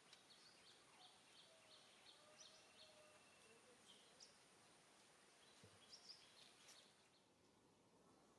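Near silence: faint outdoor ambience with a run of short, high bird chirps in the first few seconds and a few scattered ones later.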